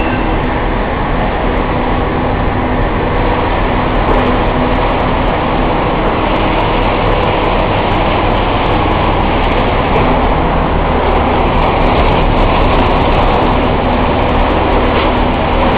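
Extruded puffed-snack production line machinery running: a loud, steady, dense mechanical noise with a low hum underneath.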